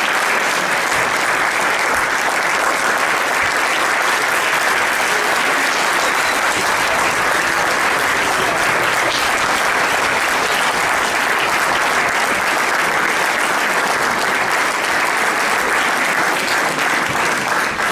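Audience applauding, one long steady round of clapping.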